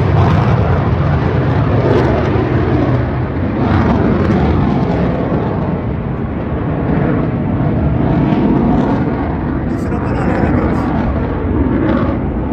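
Aircraft engine noise at an air show: a loud, steady roar that swells and eases slightly.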